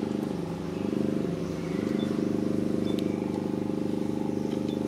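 An engine running steadily, its speed wavering briefly about a second and a half in before settling into an even idle.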